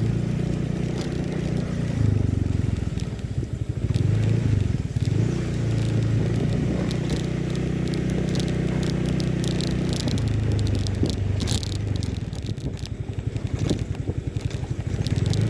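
Small motorcycle engine running steadily while riding over a rough, muddy dirt road, its pitch easing and picking up a few times. Scattered crackles and clicks from the tyres on gravel and mud.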